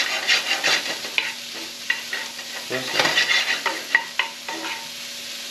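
Sliced onions sizzling in butter in a frying pan over less than medium heat, stirred with a spoon that scrapes and taps against the pan. The stirring stops near the end, leaving only the steady sizzle.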